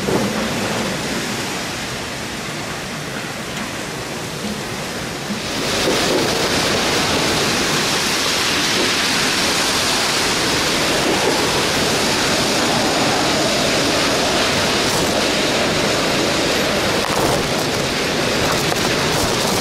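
Typhoon rain and wind making a steady rushing noise that grows louder about five and a half seconds in and stays so.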